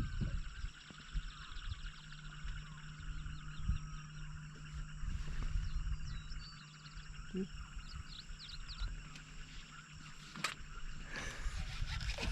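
Outdoor wildlife ambience: many short, high chirping calls from small animals, thickest in the middle of the stretch, over a low rumble and a faint steady low hum.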